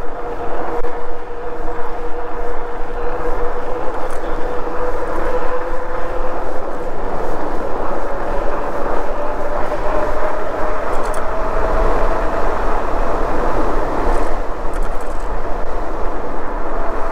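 A Himiway Zebra fat-tire e-bike rolling fast downhill at close to 30 mph: a steady hum that slowly rises in pitch as the bike gathers speed, over a constant rush of wind.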